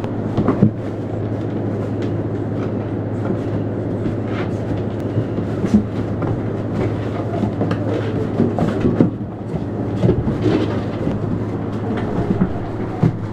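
Puppies scrambling over newspaper bedding, a busy irregular rustling and clicking with a few louder knocks, over a steady low machine hum.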